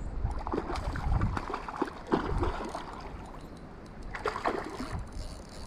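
Water splashing and sloshing in irregular bursts, busiest in the first half and again about four seconds in, over a low rumble of wind on the microphone.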